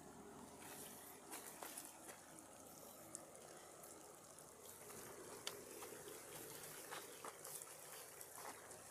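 Near silence: faint outdoor hiss with a few small, scattered clicks and rustles.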